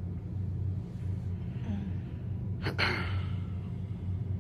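A woman in pain after surgery draws one sharp, gasping breath about two and a half seconds in, after a fainter breath about a second earlier. A steady low hum runs underneath.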